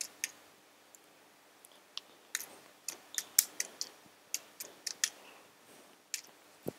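Computer keyboard keys being typed: light, irregular clicks, a few a second, with one duller, deeper click near the end.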